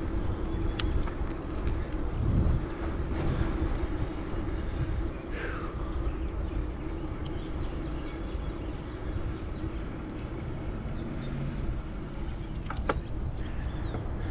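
Wind rushing over the microphone of a bicycle rider moving along a paved road, with a steady low hum underneath and a few light clicks.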